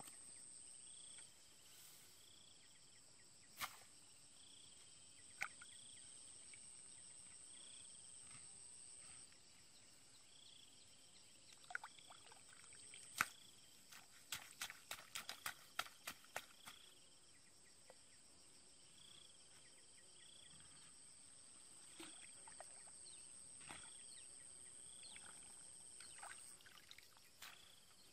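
Faint knocks of a hoe blade chopping into wet soil and mud, scattered at first and coming in a quick flurry around the middle. Behind them insects keep up a steady high drone and a chirp that repeats about once a second.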